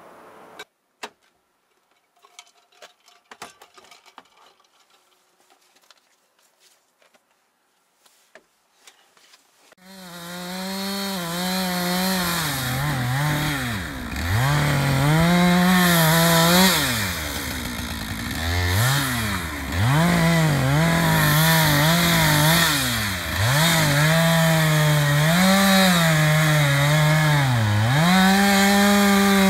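About ten seconds of near silence with a few faint clicks, then a chainsaw runs loudly at high revs, its pitch dipping and recovering again and again as it bogs under load while cutting wood.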